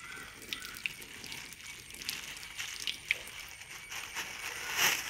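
Water dripping and trickling out of a plastic bag of pebbles being rinsed, with scattered small clicks and a brief louder rush of noise near the end.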